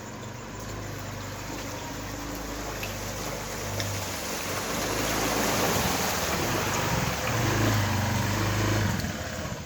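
A motor vehicle driving through floodwater: a low engine hum with the rushing and splashing of water, growing louder over the middle of the stretch and falling away near the end.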